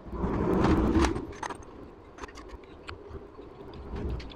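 Metal clutch plates clinking and scraping as a Honda CG125's clutch centre, stacked with its friction and steel plates, is worked down over the shaft into the clutch housing. A rustling, scraping handling sound in the first second and a half, then a run of light metallic ticks as the plates settle.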